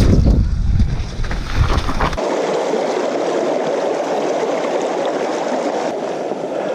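Wind rushing over the camera microphone during a fast mountain-bike descent on a dirt trail, cut off about two seconds in. Then a shallow stream running over rocks, a steady babble.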